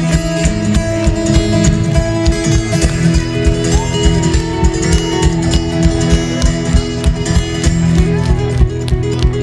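Live solo twelve-string acoustic guitar, amplified through a PA: a fast, even fingerpicked pattern over ringing, sustained low drone notes.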